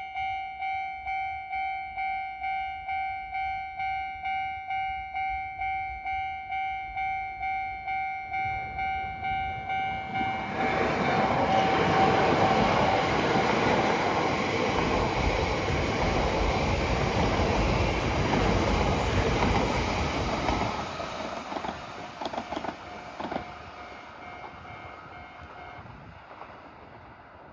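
Level-crossing warning bell ringing at about two dings a second. About ten seconds in, an Akita Shinkansen train passes over the crossing with a loud rush of wheels on rail for roughly ten seconds, with a few wheel clicks as its tail goes by. The rush then fades away while the bell rings on faintly and stops near the end.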